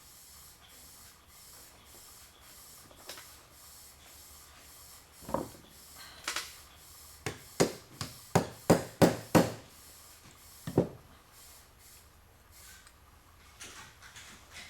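A run of about ten sharp knocks or taps in workshop quiet. Two come around 5 to 6.5 seconds in, a quick string of about three a second follows, and one more comes near 11 seconds.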